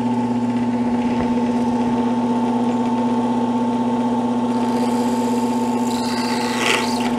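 Benchtop drill press running at a steady hum as its twist bit bores a pilot hole through PVC pipe. A scratchy cutting noise grows louder near the end.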